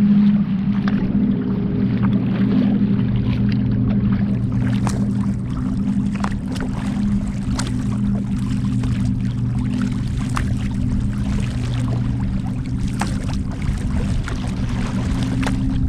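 Choppy lake water slapping and splashing against a kayak's hull and bow in many short, irregular slaps, over a steady low hum.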